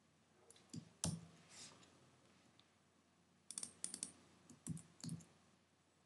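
Faint, scattered clicks of computer keys, with a quick run of several keystrokes about three and a half seconds in.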